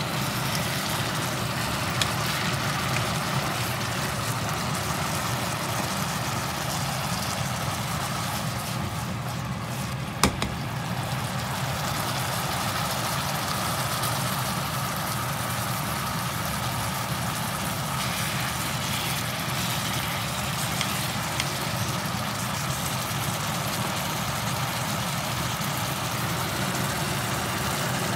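Kimchi sizzling as it is stir-fried in a frying pan, a steady hiss over a low hum. A sharp tap of the utensil against the pan comes about ten seconds in.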